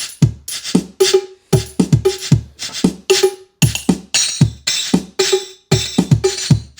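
Linn LM-1 drum machine's sequencer playing a pattern from its sampled drum sounds, with deep kick drums falling in pitch, a pitched drum note and hissy hits in a steady, quick rhythm. The sequencer runs even though its EPROMs are bit-rotten, but the hi-hats are still missing.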